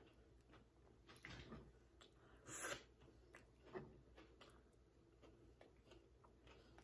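Faint eating sounds from someone chewing a chicken taco: soft mouth noises and small clicks, with a short louder burst of noise about two and a half seconds in.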